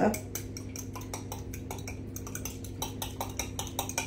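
Metal fork whisking an egg, yogurt and maple syrup mixture in a glass measuring jug, clinking rapidly and irregularly against the glass.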